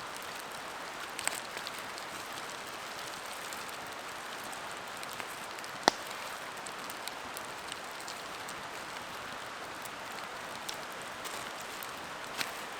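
Wood campfire crackling: a steady hiss with sparse sharp pops, the loudest about six seconds in.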